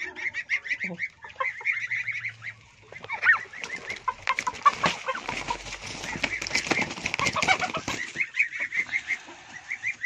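Domestic turkey hen calling in runs of rapid, repeated short notes while being held and handled, with scuffling and handling noise in the middle.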